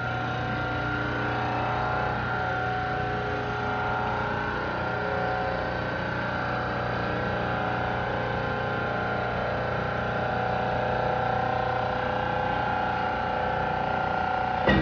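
Hydraulic pump and motor of a concrete flexural and compression testing machine running steadily with a constant hum and whine as it loads a concrete beam. Near the end a short, sharper sound stands out as the beam fails.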